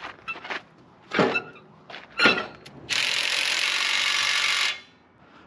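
Knocks and clanks from a half-track's track being worked onto its wheels, a few sharp hits in the first half. Then a steady hiss for about two seconds that stops abruptly.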